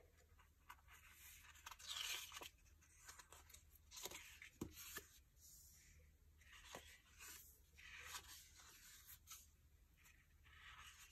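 Faint rustling and soft swishes of paper sticker-book pages being turned and handled, a few separate rustles spaced a second or two apart.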